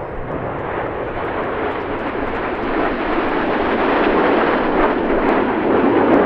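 Formation of Red Arrows BAE Hawk T1 jets flying past, the jet engine noise building steadily louder as they approach.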